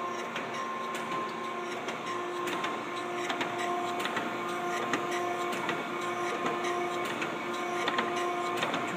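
Okamoto 12x24 surface grinder running and taking a light finishing pass of about two ten-thousandths: a steady whine from the spindle and machine with a fine crackle of the wheel grinding steel.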